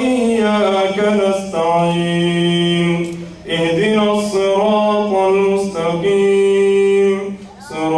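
A man chanting an Arabic supplication (dua) into a microphone in a drawn-out melodic style, holding long notes. He pauses briefly for breath about three and a half seconds in and again near the end.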